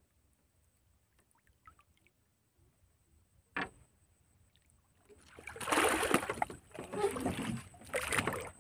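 Quiet at first, with one sharp knock about three and a half seconds in. From about five seconds in comes loud, irregular splashing and thrashing as a large fish is hauled up on a hand line and flaps against a wooden boat.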